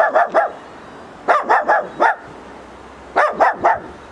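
Guard dogs barking in three quick bursts of several sharp barks each, spaced a second or more apart.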